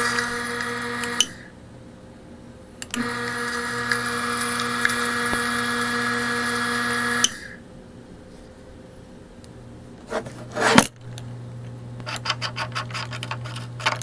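K2 stainless-steel sump pump's electric motor running dry with a steady hum and whine: it runs for about the first second, stops, then starts again and runs for about four seconds before cutting off abruptly. Near the end, a few knocks and rattles as the pump is handled.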